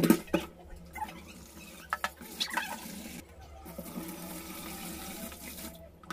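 Cut wax gourd pieces being washed by hand in a steel pot at a stainless-steel sink: water splashing and sloshing, with a few sharp clatters of metal in the first couple of seconds, then a steady rush of water.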